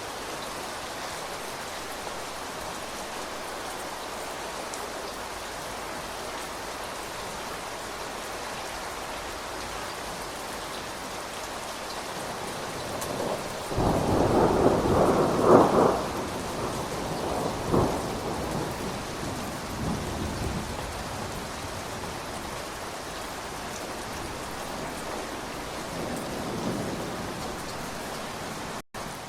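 Steady rain falling, with a peal of thunder about halfway through that builds into a loud rumble and rolls on in fading swells for several seconds.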